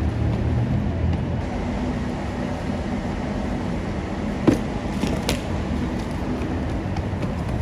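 Steady rumble of street traffic, with two sharp knocks a little after halfway, less than a second apart.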